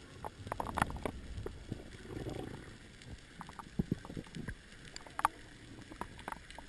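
Humpback whale song heard underwater: a low call about two seconds in, over scattered sharp clicks and pops.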